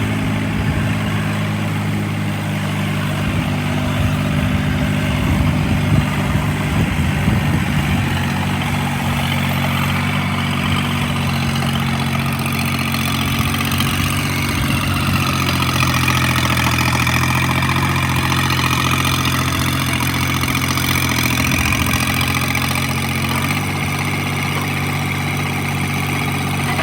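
Toro Dingo 22324 mini skid steer's engine running steadily at idle, with some brief clatter early on and a higher whine that rises and falls partway through.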